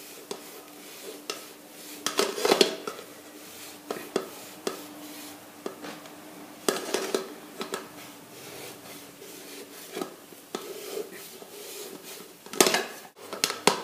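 Long kitchen knife clinking and scraping against a glass cake plate as a génoise sponge cake is sawed through horizontally and turned on the plate. Irregular knocks and scrapes, the loudest pair near the end.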